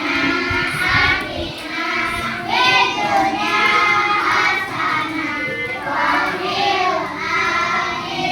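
Children's voices singing a song together.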